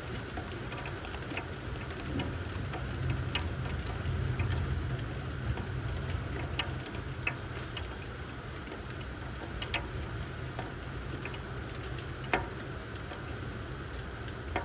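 Steady rain during a thunderstorm shower, with scattered sharp drops striking a hard surface, one loudest near the end. Under it runs a low rumble that swells a couple of seconds in and then eases.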